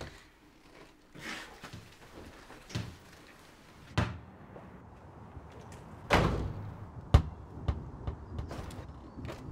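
A door closing and banging, with separate knocks and thumps: sharp bangs about four and seven seconds in, the second the loudest, and a scraping, fading sound just before it.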